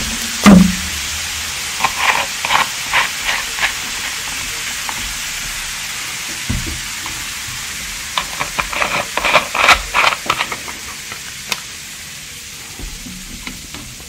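Carbonated soda fizzing with a steady hiss, with a loud short sound about half a second in and two runs of crackling bubble pops.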